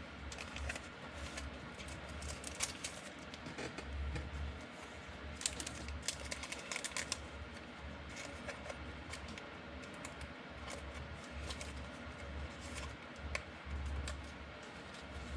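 Scattered small clicks and light rustling of trading cards being handled and flipped through, with a faint low hum that comes and goes.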